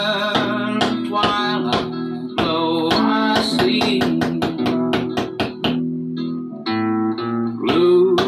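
Recorded music played back from a screen: an acoustic guitar picks single notes, each with a sharp start, over ringing low notes.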